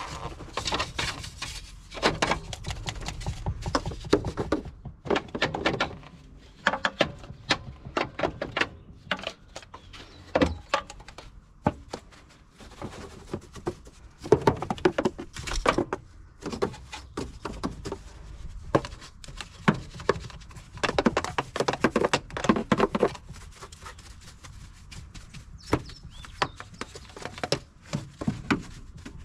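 Irregular knocks, thuds and clattering of objects being handled and set down, in quick clusters with short gaps between them.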